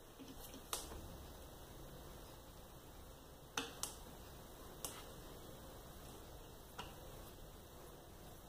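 A handful of small, sharp clicks and taps as a die-cast toy car is held and painted with a brush on a table, over faint room tone; the loudest come in a quick pair near the middle.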